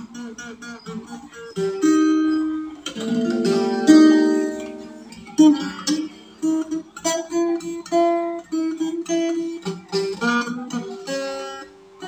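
Small acoustic guitar played by hand, mostly single picked notes, with a couple of fuller strummed chords ringing about three to four seconds in.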